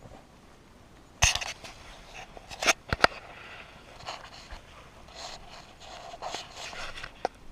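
A sharp knock, then three quick sharp clicks, followed by several seconds of scraping and rustling with one more click near the end.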